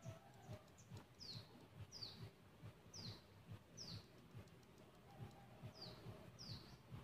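A faint bird calling: six short, high chirps, each sliding downward in pitch, spaced under a second apart with a pause midway.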